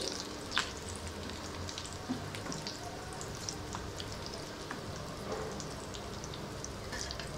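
Breaded rui fish chops frying in hot oil in a shallow pan: a steady sizzle with many small scattered crackles, and one sharper tick about half a second in.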